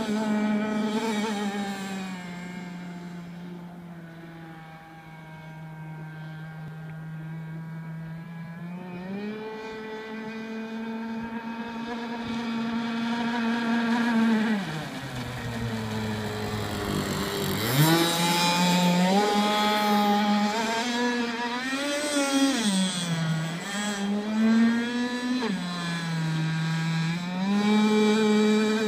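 Radio-controlled speedboat's motor running at speed in a steady whine. It fades as the boat moves away, drops sharply in pitch about halfway through as the boat slows, then climbs back up and keeps rising and falling with the throttle.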